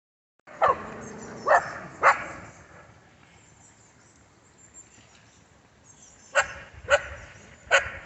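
A dog barking: three sharp barks in quick succession, a pause of about four seconds, then three more.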